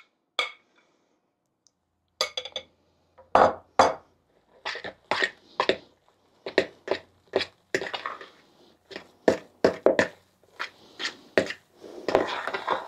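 Hand mixing a mashed egg-yolk, liver pâté and mayonnaise filling in a plastic bowl: a run of short wet mixing strokes, about two or three a second, starting about two seconds in.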